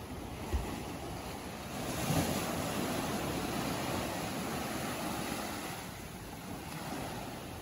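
Ocean surf breaking and washing up the beach, a steady rush of water. A wave surges in about two seconds in and the wash eases off after a few seconds.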